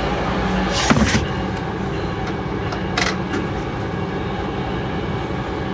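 Diesel locomotive running, heard inside its cab: a steady rumble of engine and wheels on rail, with a couple of short sharp knocks about one and three seconds in.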